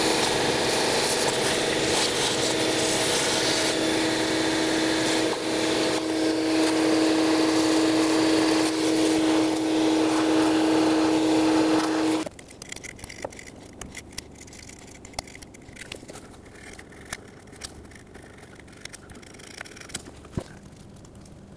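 Vacuum running steadily with a held hum, its hose sucking up scraped gasket debris and corrosion from the cylinder head's valve cover sealing surface. It cuts off suddenly about twelve seconds in, leaving faint scattered clicks.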